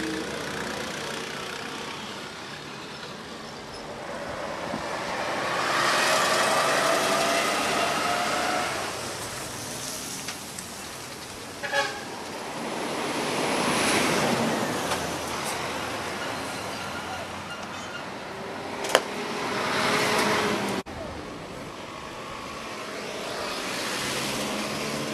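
Busy road traffic: trucks, buses and motorcycles passing, engine and tyre noise swelling and fading as each goes by, with short horn toots midway.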